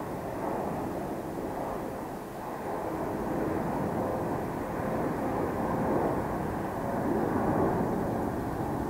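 Boeing 747-8 freighter's four GEnx turbofan engines climbing overhead and moving away: a steady rushing rumble that swells and eases slowly, with a faint held tone in the middle of it.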